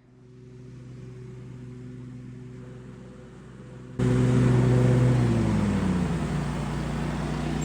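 Riding lawn mower engine running steadily, suddenly much louder about four seconds in, then its pitch falls as the engine slows down.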